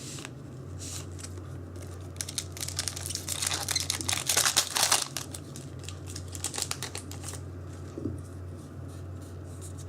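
A Yu-Gi-Oh booster pack's foil wrapper crinkling and tearing open, with a dense crackle from about three seconds in until past seven seconds, loudest in the middle. A steady low hum runs underneath.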